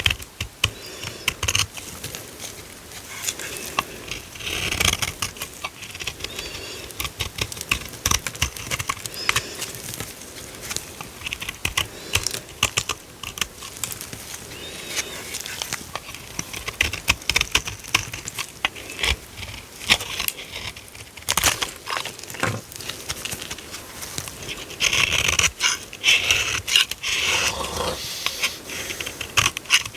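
Dry ASMR soap being cut and crumbled: a dense, crisp crackling and clicking, with louder crunchy stretches about five seconds in and again near the end.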